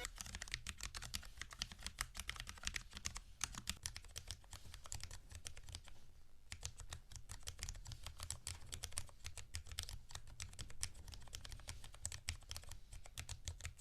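Typing on a Cherry low-profile mechanical keyboard with linear MX Low Profile switches: a steady stream of key clicks with a short pause about six seconds in.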